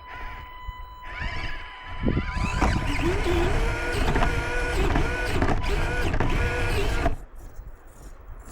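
Small electric motor and gearbox of an Axial SCX24 RC crawler whining as it drives. The pitch rises about a second in, then the whine pulses and wavers with the throttle until it cuts off about seven seconds in.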